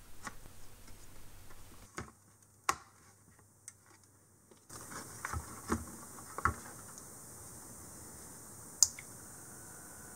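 Scattered light clicks and knocks of a VGA expansion card being handled and pushed into the slot of a 386 mainboard. About nine seconds in comes one sharp click, the toggle power switch being flipped on.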